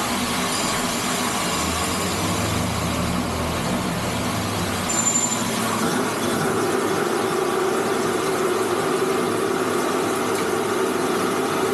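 Machine tool running with a steady mechanical noise as its Y-axis is driven. A low drone sounds from about 2 to 4 seconds in, and a steadier higher hum takes over from about 6 seconds on.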